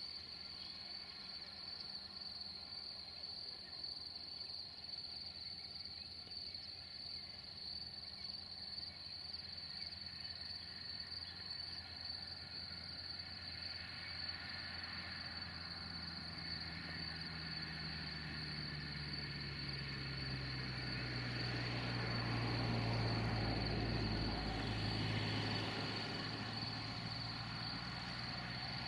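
Crickets chirping steadily. From about halfway in, the low engine hum and rumble of an approaching diesel locomotive grows louder, loudest near the end, its engine note dropping slightly.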